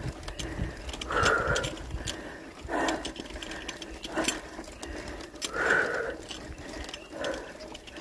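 A cyclist's heavy breathing in a regular rhythm, one breath about every one and a half seconds, while the bicycle rattles and clicks over rough gravel.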